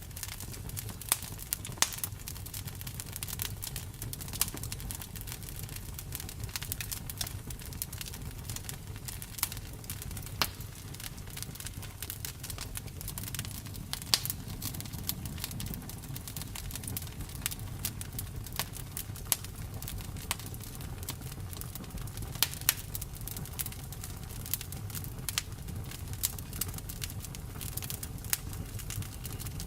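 Campfire crackling: irregular sharp pops and snaps, some louder than the rest, over a steady low rumble.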